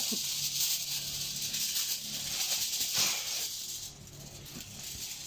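Aluminium foil crinkling and rustling as it is folded around a fish, a papery hiss with small crackles that eases off about four seconds in.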